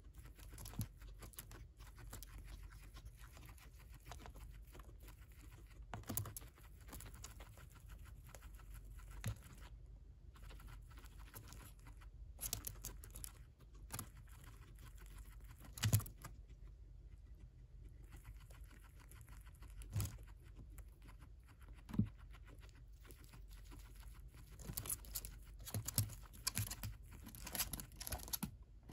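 Guinea pig chewing and tearing corn husk and silk: a steady run of small crunching clicks, with louder snaps and rustles of the dry husk every few seconds and a busier stretch near the end.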